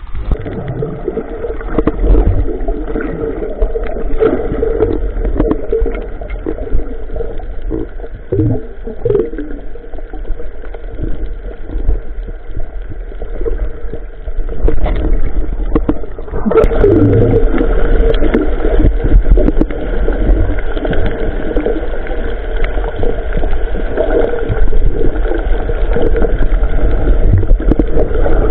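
A small boat's engine running steadily, with water sounds. It grows louder about halfway through.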